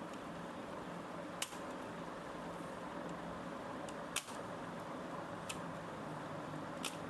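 Four sharp clicks, a second or more apart, as the laptop's plastic base cover is prised loose, over a steady hum.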